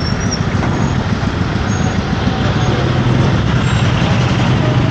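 Motorcycle engine running at low speed in heavy city traffic, mixed with the rumble of surrounding cars, buses and scooters, picked up by an Insta360 One RS action camera's built-in mic. A low steady engine hum grows louder about three seconds in.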